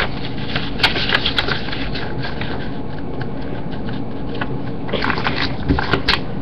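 A sheet of A4 paper being folded and creased by hand, rustling and crinkling, with a few sharp crackles about a second in and again near the end.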